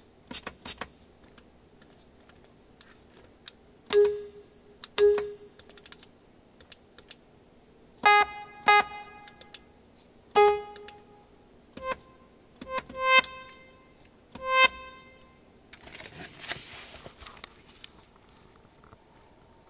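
Roland SC-88 Sound Canvas sound module playing isolated test sounds: a couple of clicks, two single hits, then a series of short piano notes, some in quick pairs, each dying away quickly. A brief hiss-like noise follows near the end.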